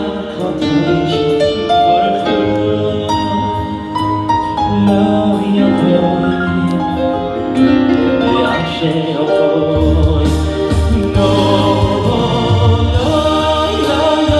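Male vocalist singing live into a microphone with held, wavering notes, backed by a Korg electronic keyboard playing sustained chords and a bass line through PA speakers.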